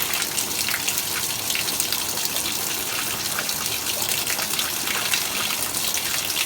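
Top-loading washing machine filling with water at the start of a cold wash cycle: a steady gush of water pouring into the drum, with the lid open.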